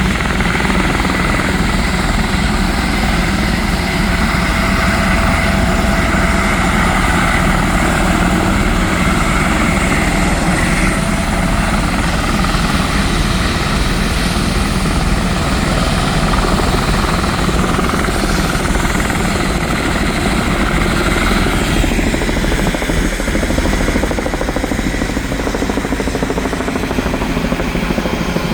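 Helicopter's turbine engine and rotor running close by, a loud steady sound with a high whine over a low rumble; the whine drops away about three-quarters of the way through, leaving the lower rumble.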